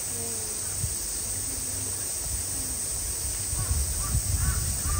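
Crows cawing several times in the second half, over a steady outdoor hiss, with low rumbling under the calls.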